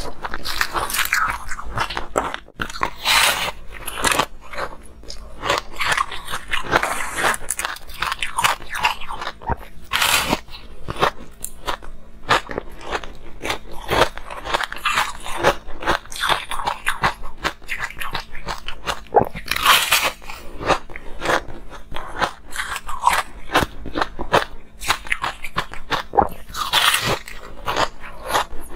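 Frosty, foamy-textured ice being bitten and chewed: a dense, irregular run of crisp crunches and crackles that never lets up.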